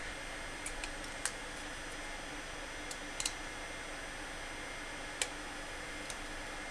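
Scattered small, sharp clicks and ticks of a graphics card's plastic fan shroud, metal heatsink and a screwdriver being handled during reassembly, about eight in all, over a steady faint hiss.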